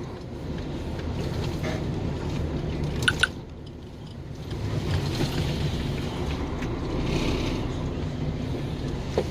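Steady low drone of a KAMAZ truck's diesel engine and road noise heard inside the cab while driving, with a brief double chirp about three seconds in.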